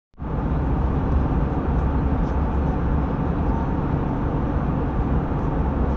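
Airbus A320 cabin noise at cruise altitude: a steady, low, even roar of the jet engines and rushing air, heard from inside the cabin.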